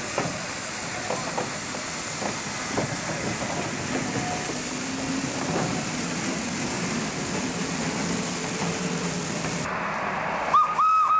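TGOJ M3t 71 steam turbine locomotive working hard under a heavy train: a steady loud rush of steam hiss with scattered knocks from the train, and no chuffing beat. Near the end a high whistle sounds in a few short blasts, the loudest sound here.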